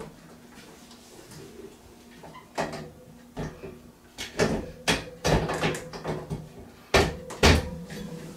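Metal wire-shelving parts of a ClosetMaid ShelfTrack system being handled and fitted: about ten sharp knocks and clacks starting a couple of seconds in, the two loudest near the end, over a faint steady hum.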